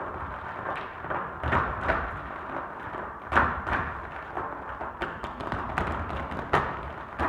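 Irish dance hard shoes struck on a wooden stage by a line of dancers in unison, with no music. There are about ten sharp stamps and taps, irregularly spaced with pauses between them.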